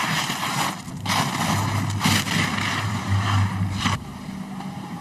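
Ski edges scraping and carving on hard-packed race snow as a giant slalom racer turns through the gates at speed, heard as several long swishing surges.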